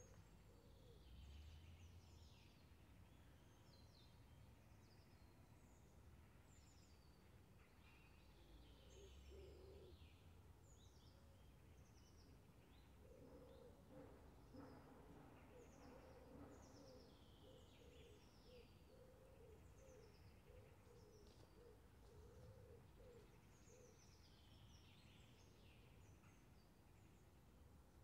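Faint outdoor park ambience in the morning: small birds chirping and twittering in short, high calls throughout, over a low distant rumble. From about halfway through, a low wavering tone lasts for around ten seconds beneath the birdsong.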